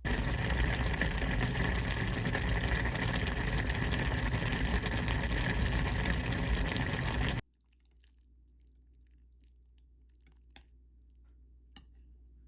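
Steady rush of running water for about seven seconds, cutting off suddenly, followed by a few faint clicks.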